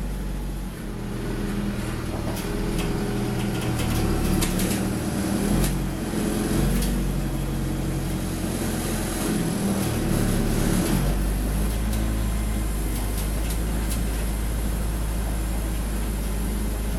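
Ikarus 405 city bus heard from inside the passenger cabin: the engine runs under load with its pitch rising and shifting, and scattered rattles and clicks come from the interior. About eleven seconds in, the engine settles to a steady low drone.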